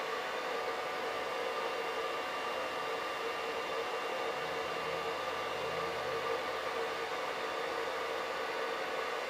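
Hair dryer running steadily: an even rush of blown air with a steady motor hum in it.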